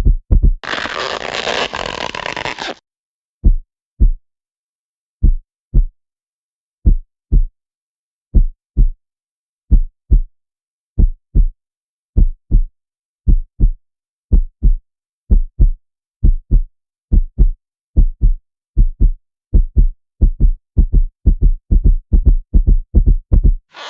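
Sound-effect heartbeat, paired lub-dub thumps: fast at first, then after a roughly two-second burst of growling noise about a second in, slow and steadily quickening until it races near the end. The burst is the stomach-growl effect.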